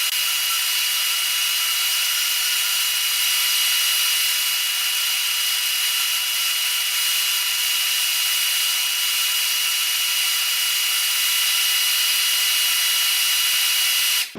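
Electric sander running steadily on oak, sanding glued-in oak plugs flush with the back of a slab, with a steady motor whine over the hiss; it cuts off suddenly near the end.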